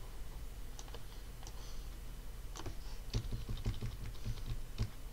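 Computer keyboard and mouse clicking, in scattered single clicks with a quick run of them about three seconds in. A low steady hum sits underneath.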